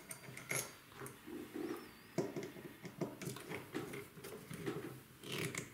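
Screwdriver driving the top screw back into the chrome lever handle of a two-handle bathroom faucet: faint, irregular small clicks as the screw is turned.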